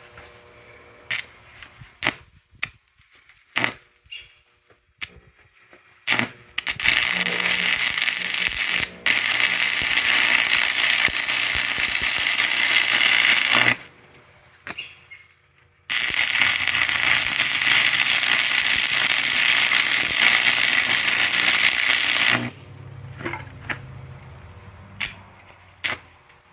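Electric arc welding on steel rail pieces: two welds of about seven and six seconds, each a steady sizzling hiss, separated by a short pause. Before and after them, light metallic clinks as the steel parts are handled and set in place.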